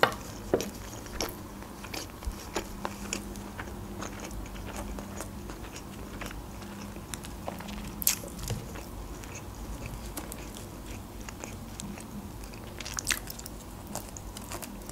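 Close-up chewing and biting of sesame simit bread, with moist mouth sounds and many small clicks; a few sharper clicks stand out at the very start, about eight seconds in and about thirteen seconds in.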